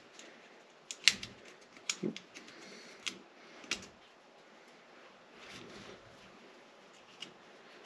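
Small sharp clicks and snaps of a spring clip being handled and fitted onto a fuel-line quick-connect fitting. There are about six clicks in the first four seconds and one more near the end, with a soft rustle of handling in between.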